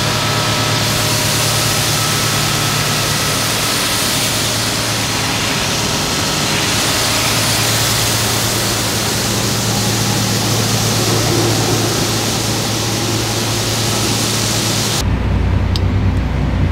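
Shelled corn pouring from a semi trailer into a grain auger: a steady, loud hiss of running kernels over the low hum of the auger's drive. About fifteen seconds in it cuts to a deeper machine engine drone.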